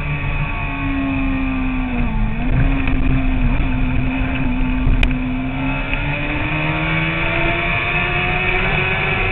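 Sport motorcycle engine running at highway speed under rushing wind noise. The engine pitch dips briefly about two seconds in, holds, then rises slowly near the end as the bike speeds up. One sharp click about halfway.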